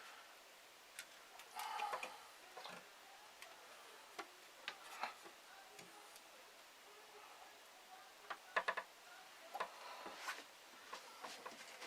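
Light, scattered wooden clicks and knocks from handling the split-stick bird perch trap while setting it, with a quick run of clicks about two-thirds of the way through.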